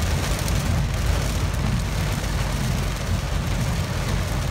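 Heavy rain pelting a car's roof and windscreen, heard from inside the cabin as a steady dense hiss over a low rumble.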